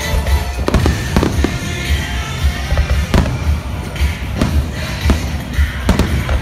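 Aerial fireworks shells bursting, about half a dozen sharp bangs at irregular intervals, over music with a pulsing bass beat.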